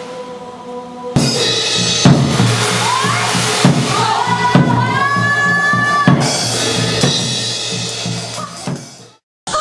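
Stage music with a drum kit: bass drum and snare hits under a gliding melody line. It starts abruptly about a second in after a held drone, then fades out near the end.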